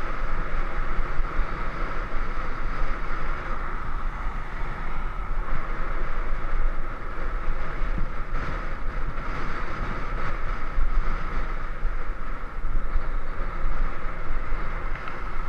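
Steady wind noise buffeting the microphone, with a low rumble from the moving ride along the road.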